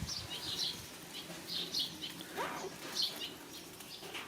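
Small birds chirping, short high chirps in quick clusters that repeat every half second or so. About two and a half seconds in there is a single short rising whine.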